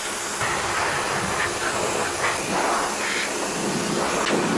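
Pressure washer jet blasting water onto a steel Wheel Horse mower deck: a loud, steady hiss with the spray splattering off the metal, over a faint steady hum.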